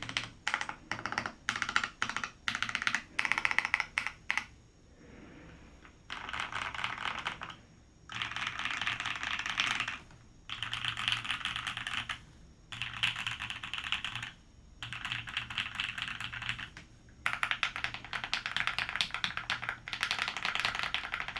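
Typing on a Matrix Lab 1.2og TKL mechanical keyboard: top-mount, aluminium plate, brass weight, JWK Opblack linear switches and BSP keycaps. It opens with separate single keystrokes, then comes a run of about six quick typing bursts, each a second or two long, with short pauses between.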